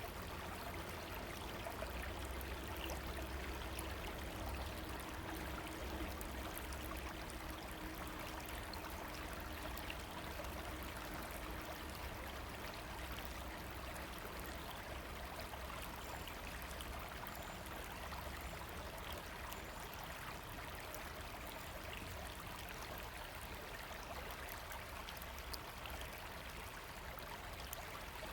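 A river running, a steady, even rush of water.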